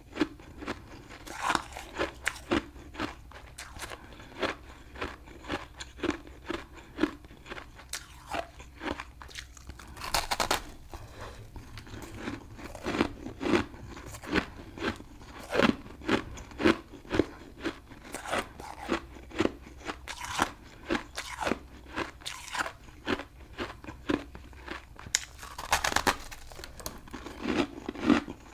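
A crunchy chunk of humidifier frost being bitten and chewed close to the microphone: a steady run of sharp crunches, about two a second, broken by a few louder, longer bites, one near the start, one around the middle and one near the end.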